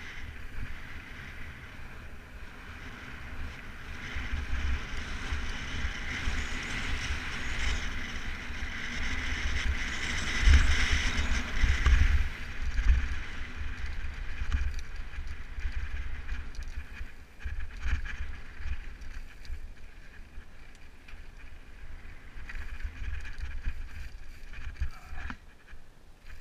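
Mountain bike rolling over loose rocky singletrack: tyres crunching on gravel, with wind rumbling on the microphone, loudest about ten to twelve seconds in.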